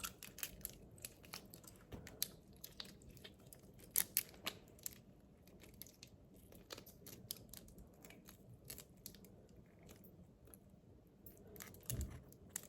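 Raw shrimp being peeled and deveined by hand with long fingernails: faint, irregular little clicks and crackles of shell coming away, with a sharper click about four seconds in and a duller knock near the end.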